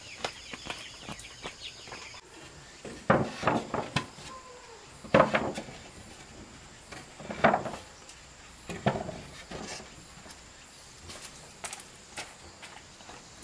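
About six heavy blows on wood, spaced a second or two apart in the middle of the stretch, the sound of wood being worked with a striking tool, with hens clucking in the first couple of seconds.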